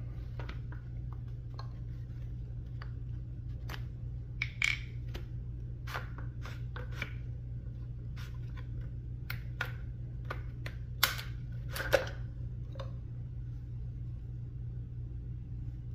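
A polymer-stocked 9mm carbine being taken apart by hand: scattered plastic and metal clicks and clacks as parts are pushed out and the stock halves are pulled open, the two sharpest snaps near the end. A steady low hum runs underneath.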